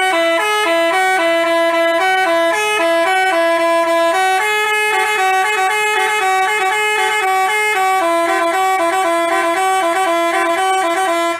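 Telolet Basuri musical bus horn playing a loud, fast tune of quick stepped notes, two notes sounding together.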